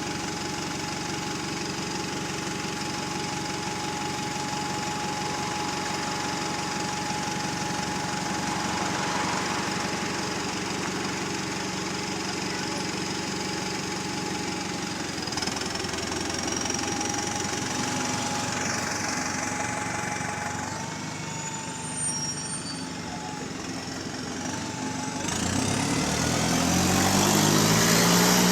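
Bus engine running steadily with the noise of a leaking exhaust, then revving up with a rising pitch about 25 seconds in, getting louder toward the end as the bus pulls away.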